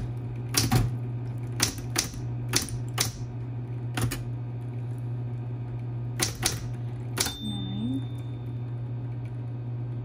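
SCM Smith-Corona Coronet Electric 12 electric typewriter typing: about ten separate key strikes with uneven pauses between them, over the steady low hum of its running motor.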